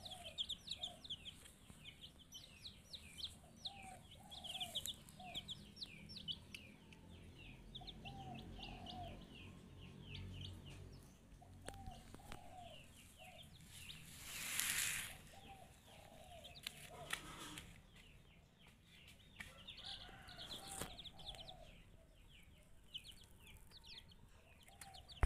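Two-week-old broiler chicks peeping, many short high peeps in quick runs, with lower clucking calls in small groups of two to four. A brief rushing noise about halfway through.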